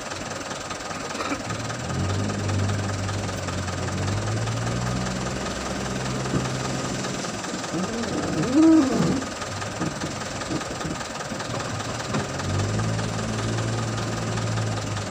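Diesel engines of a backhoe loader and a dump truck running, the engine note stepping up and down in pitch several times as the backhoe revs while working. About eight seconds in, a short hoot-like tone rises and falls over about a second, the loudest sound in the stretch.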